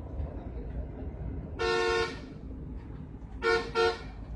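Vehicle horn sounding: one blast of about half a second, then two short toots about a second and a half later. Under it runs the steady low rumble of a bus's engine and road noise.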